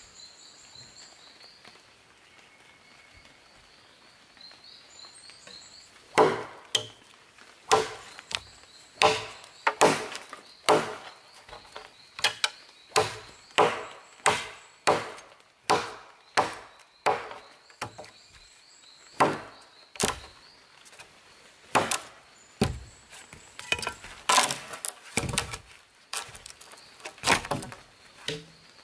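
A large bush knife chopping through a small round log, about thirty sharp wooden chops at one to two a second, starting about six seconds in, until the log is cut in two. Before the chopping starts, only a faint, high chirping is heard.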